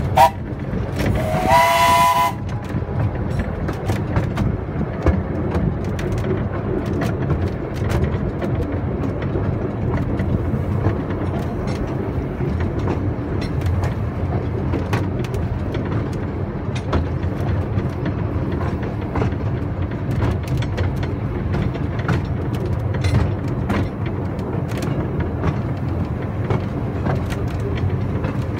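A narrow-gauge steam locomotive's whistle, blown once for about a second near the start and rising slightly in pitch. Then the carriage runs steadily along the narrow-gauge track, with a low rumble and frequent irregular clicks and knocks from the wheels and the carriage.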